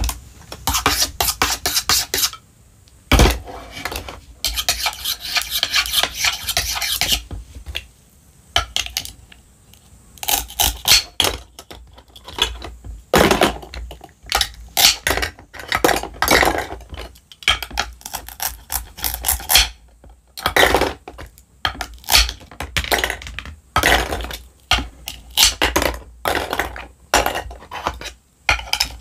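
Plastic play food and a toy knife tapping, clacking and scraping on a wooden cutting board in quick runs of clicks, as toy vegetables are cut and handled. A sharp knock about three seconds in.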